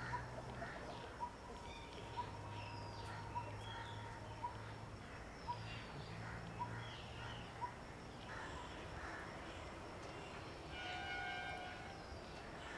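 Outdoor bird ambience: scattered chirps and a short call repeated about once a second, over a faint low hum that comes and goes. Near the end a held horn-like note sounds for about a second.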